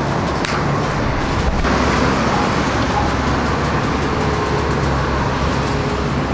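Steady city street traffic noise, with a low engine hum underneath.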